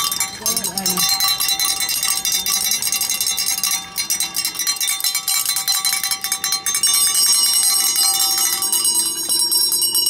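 A handheld cowbell shaken rapidly and steadily, a fast unbroken run of ringing metallic clangs that gets louder about seven seconds in.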